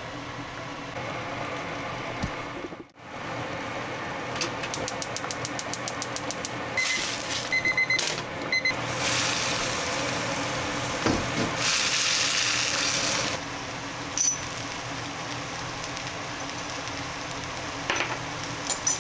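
Tomato and shrimp sauce sizzling in oil in a stainless frying pan on a gas stove, with spaghetti tossed in it using a wooden spatula. A run of fast clicks comes about five seconds in, a few short high beeps follow, and the sizzle grows louder for a couple of seconds about halfway through.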